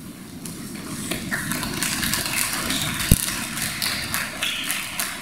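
Footsteps and shuffling of several people walking down wooden stage steps and across a hall floor, with one loud thud about three seconds in.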